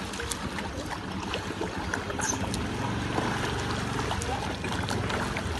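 Pool water sloshing and lapping as a swimmer makes freestyle arm strokes and turns his head to breathe, with scattered small splashes and drips.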